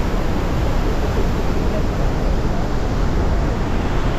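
Loud, steady rushing noise of water and wind on the microphone, as on a boat on a river.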